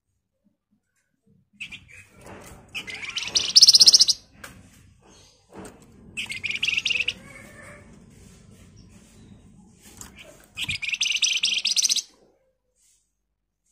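Horsfield's babbler (flamboyan) giving three bursts of fast, harsh rattling chatter, each about a second long, in quick succession.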